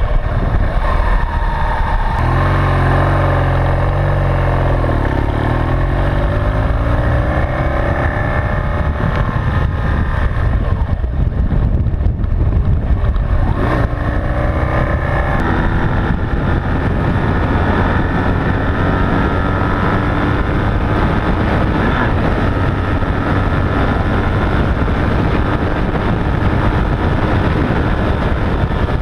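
Motorcycle engine running while riding on the road, with steady wind rush on the microphone. The engine note shifts up and down a few times early in the stretch and again about halfway through, then settles into a steady cruise.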